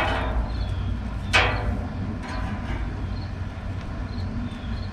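Metal grill utensil clinking and scraping against the cooker's grate twice, about a second and a half apart, while squirrel legs are turned over the fire. A steady low rumble lies underneath.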